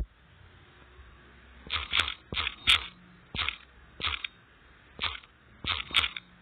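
Key taps on a phone's on-screen keyboard as letters are typed: about ten short clicks at an uneven pace, starting about a second and a half in.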